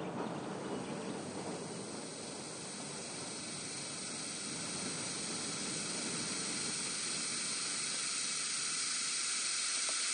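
A steady, rushing hiss with a rougher, lower rumble in the first two or three seconds; the hiss slowly grows louder and brighter.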